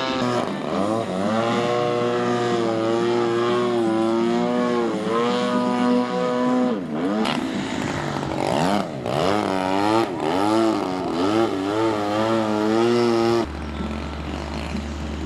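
Skywing 540 RC aerobatic plane's propeller and motor in flight, the pitch repeatedly climbing and dropping as it is throttled through manoeuvres and passes by. About two seconds before the end the high tone falls away, leaving a low, steady hum.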